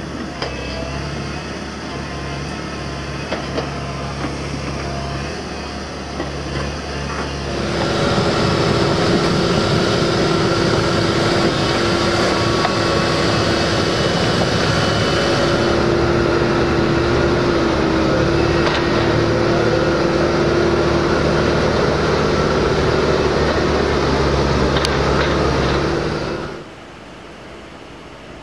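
Komatsu PC130 hydraulic excavator's diesel engine running while it works; about a quarter of the way in it revs up under load, louder and steady with a held tone, until it cuts off near the end, leaving a quieter steady rush.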